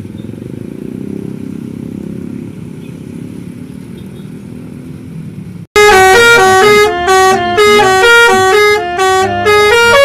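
A vehicle engine running with a low rumble; about six seconds in the sound breaks off sharply and a bus's telolet multi-trumpet air horn (Basuri V3) comes in very loud, playing a stepping melody of several tones at once.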